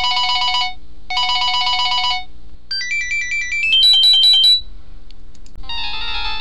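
Mobile phone ringtones going off one after another. First come two bursts of a rapid electronic trilling ring, then a stepped rising run of beeps, then a rising tune near the end, all over a steady low hum.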